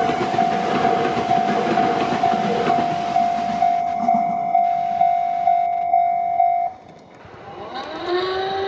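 E6-series Akita Shinkansen electric train passing over a level crossing, its rushing rumble fading away after about four seconds, while the crossing's electronic warning bell rings about twice a second and cuts off suddenly near the end.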